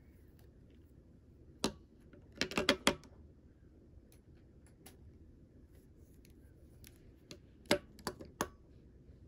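Plastic pens and highlighters set down on a tabletop, clacking against it and each other: one sharp clack, a quick run of clacks about a second later, and three more near the end.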